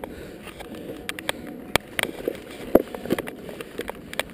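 Mountain-bike parts clicking and knocking on a rocky trail: irregular sharp clicks, a few a second, over a low rumble of outdoor noise.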